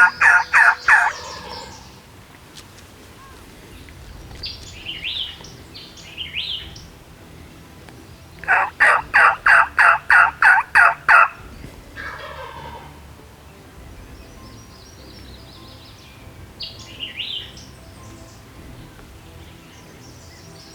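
Wild turkey yelping: two runs of about ten loud, evenly spaced yelps, one ending about a second in and another starting about eight and a half seconds in, with softer, higher calls between them.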